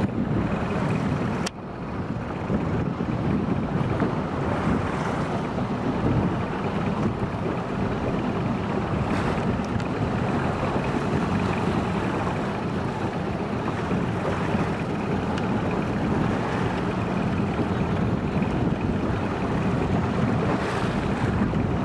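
A boat's motor running steadily under wind buffeting the microphone and choppy water washing around the hull. There is a brief click about a second and a half in.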